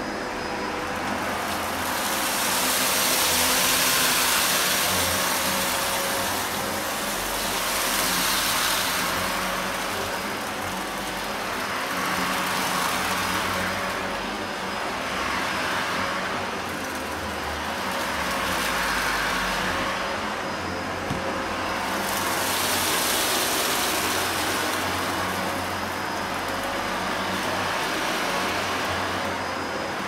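Shark Anti Hair Wrap Powered Lift-Away upright vacuum cleaner running steadily while it is pushed back and forth over carpet, picking up scattered debris. Its noise swells and fades every four seconds or so with each push and pull.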